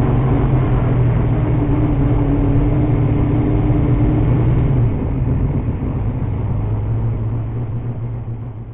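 358 small-block V8 of a dirt modified stock car, heard on board, running slowly off the track behind another car. About five seconds in the engine note drops as the throttle eases, and the sound gets steadily quieter toward the end.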